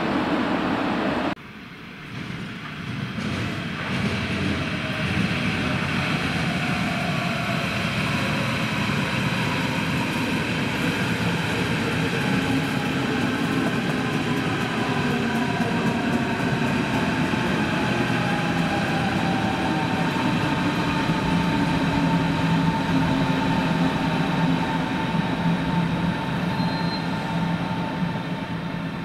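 Berlin S-Bahn electric multiple units running through the station: a rumble of wheels on rail with electric motor whine, the whine sliding down in pitch as a train slows, then settling into a steady hum. About a second and a half in, an abrupt break cuts off a louder mainline train sound, and the S-Bahn noise builds back up over the next few seconds.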